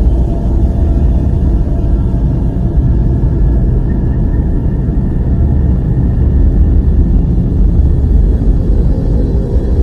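A loud, steady low rumble, heaviest in the deep bass, with faint steady tones above it and no breaks or changes.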